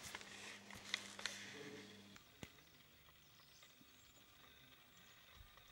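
Near silence: faint background with a few soft clicks and a low steady hum that stops about two seconds in.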